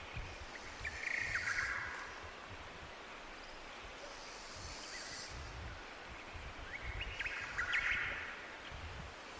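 Tropical birds calling in two short bursts of quick chirps, about a second in and again near the end, over a steady rush of jungle waterfall water.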